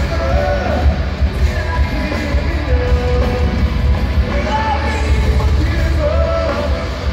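Live heavy rock band playing, with a singer's sung melody over distorted guitars, bass and drums.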